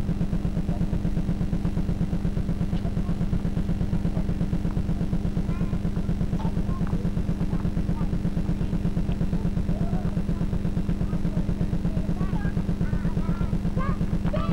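A loud, steady low electrical buzz with a fast, even pulse, the hum of an old home-video camcorder's sound track. Faint, high children's voices call out now and then over it, with a louder falling cry at the very end.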